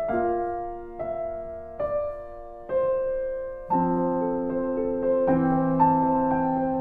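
Slow, gentle background piano music: single notes and chords struck about once a second, with fuller, lower chords from about four seconds in.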